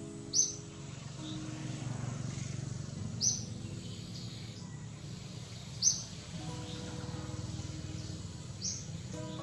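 Soft background music with held low notes over a steady low rumbling noise, and a short high bird-like chirp repeating about every three seconds.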